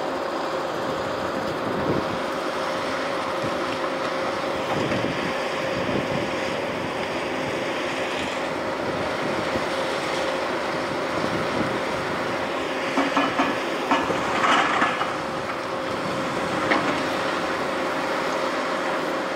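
Volvo excavator's diesel engine running steadily with a constant whine, working through demolition rubble. A burst of clattering debris comes about two-thirds of the way through.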